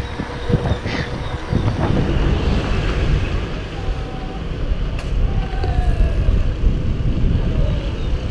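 Wind buffeting a helmet-mounted camera's microphone while riding a bicycle on a road, a steady low rush that rises and falls, mixed with road noise.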